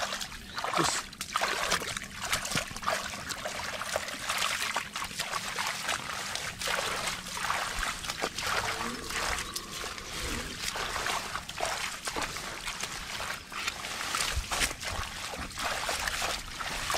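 Hands splashing and sloshing in shallow muddy water among water hyacinth as they grope through the mud: a continuous run of irregular small splashes and trickles.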